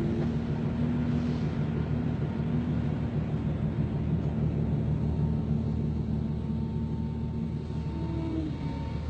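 Ship's machinery running with a steady low rumble and hum.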